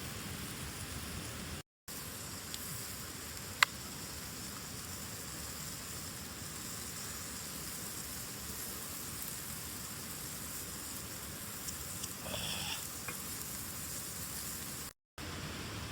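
Campfire crackling over a steady hiss, with one sharp pop about three and a half seconds in.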